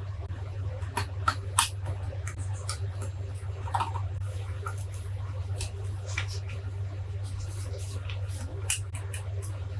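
Small clicks, taps and scrapes of tweezers and fingers working on the small plastic and metal parts of a disassembled Canon 400D camera, with one louder click near the end, over a steady low hum.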